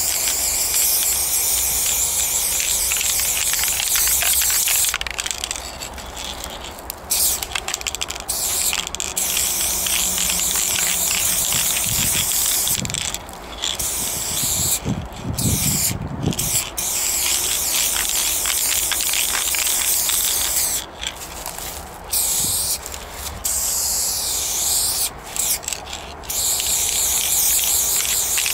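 Aerosol spray paint can fitted with a wide fat-cap nozzle, spraying in long hissing strokes broken by many short pauses as the nozzle is released and pressed again.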